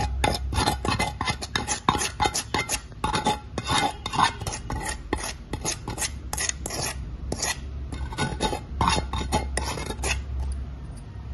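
A spoon scraping and clinking against a stainless steel bowl in quick, irregular strokes as oily chilli masala is spooned over pieces of fish pickle. The strokes stop shortly before the end.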